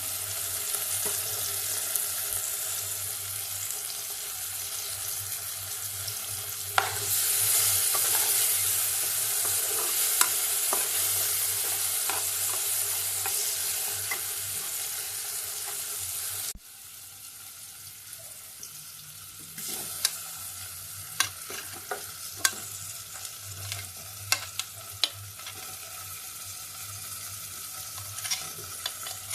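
Food sizzling as it fries in a pan while being stirred. The sizzle grows louder about a quarter of the way in, drops abruptly just past halfway, and in the last third sharp clicks of a utensil striking the pan punctuate it.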